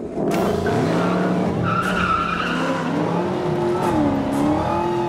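V8 muscle cars launching hard from a standstill, engines revving high with tyres squealing as they spin for grip. The sound comes in suddenly a moment in and stays loud.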